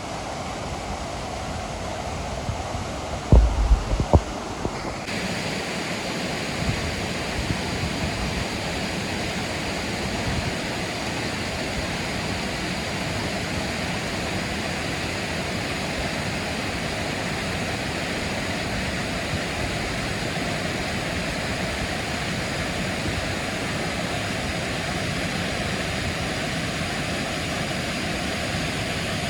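Steady rush of a waterfall. In the first few seconds wind knocks on the microphone with a few low thumps. About five seconds in the sound changes suddenly to a brighter, hissier roar of falling water.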